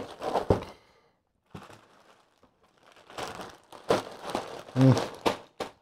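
Plastic bags full of small plastic bricks crinkling and rustling as they are handled and pushed into a cardboard box. The crinkling comes in irregular bursts, with light knocks and clicks from the bricks, and is busiest in the second half.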